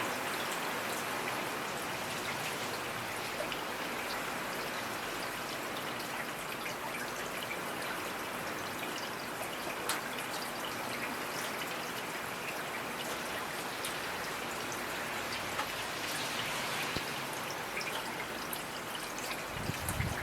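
Steady rainfall, with individual drops ticking sharply here and there over the even hiss of the rain. A brief low thump near the end.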